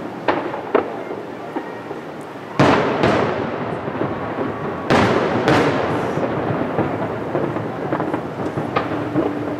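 Aerial firework shells bursting at a distance: two small cracks, then three big booms about two and a half seconds in, five seconds in and just after, each trailing off in a rolling rumble, and a lighter crack near the end.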